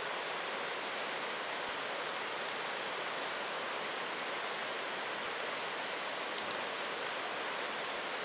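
Steady rain falling, an even hiss, with one faint click about six seconds in.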